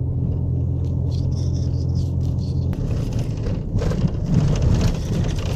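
Van engine running at low speed, heard from inside the cab as a steady low hum. About two and a half seconds in, the even hum gives way to an uneven rumble with knocks as the tyres go over the snowy, rough road.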